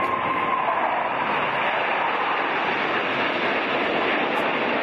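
J-10 fighter jets flying over in formation: a steady jet roar, with a whine near the start that drops slightly in pitch.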